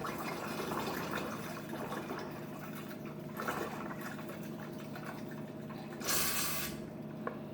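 Used engine oil pouring and trickling out of a hand-pulled oil extraction syringe into a drain container. A short hiss comes about six seconds in, and a sharp click near the end.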